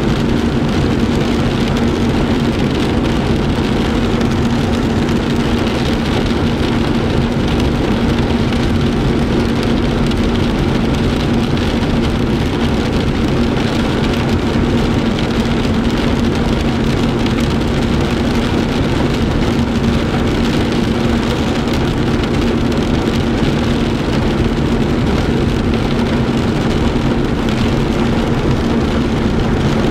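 Heavy rain pelting a car's windshield and roof, heard from inside the car, over a steady engine hum.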